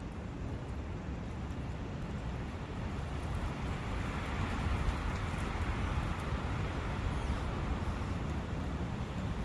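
Steady rushing of a forest brook, growing a little louder about four seconds in.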